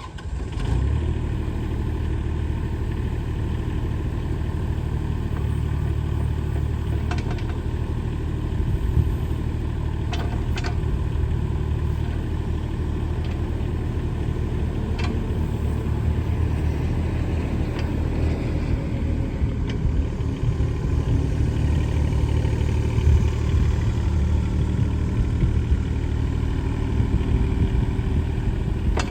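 Diesel engine of a 2022 Case CX17C mini excavator running steadily, with a few short clanks along the way.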